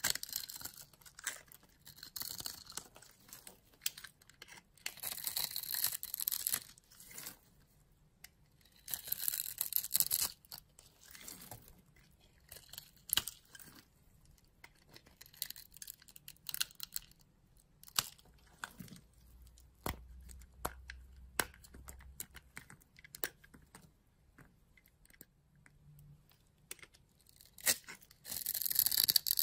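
Blade cutting and scraping across a bar of soap scored into a grid, shaving it off in small cubes with a crisp crackling. The crackling comes in bursts of a second or two, with single sharp clicks of the blade in between.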